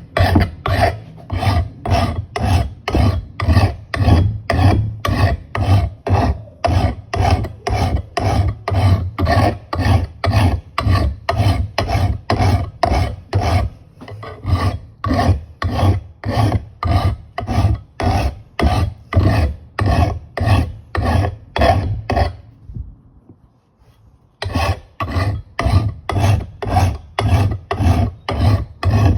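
Flat file being stroked along the edge of an old Kentish axe head to sharpen it: steady rasping strokes, about two a second, with a pause of about two seconds near the end before the filing starts again.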